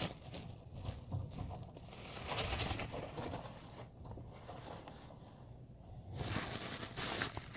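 Rustling and crinkling with scattered light taps in a guinea pig's cage as the animal is fed, busier about two seconds in and again near the end; no clear squeals stand out.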